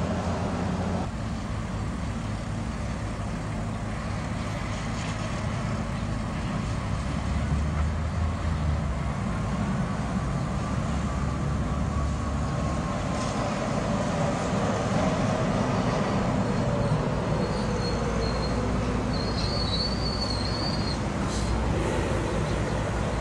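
Trams passing on curved street track: a steady low rumble of wheels and motors, a whine falling in pitch through the middle, and a thin high wheel squeal in the second half. A couple of sharp clicks come near the end.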